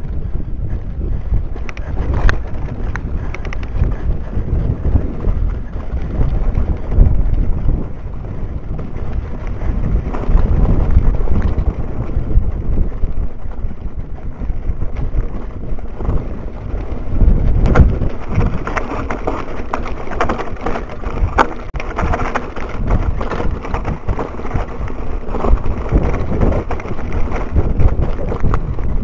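Wind buffeting an action camera's microphone while riding a mountain bike on a dirt trail, with rattling and knocks from the bike jolting over rough, stony ground. The knocks get busier in the second half.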